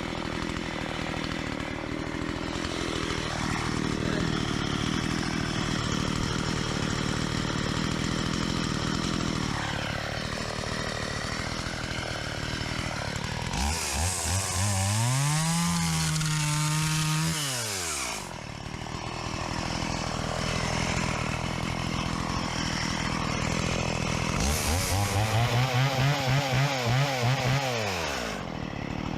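STIHL 017 two-stroke chainsaw engine idling. It is revved up twice, each time rising, holding for a few seconds and dropping back to idle. This is the junk, non-running saw brought back to life after a full teardown and repair.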